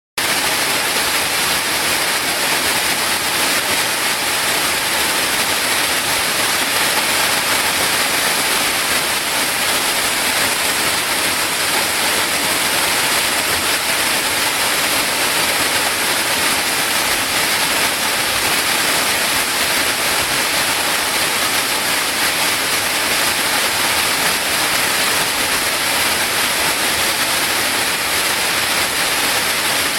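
Waterfall: a steady rush of falling water, an even hiss strongest in the upper range that does not change.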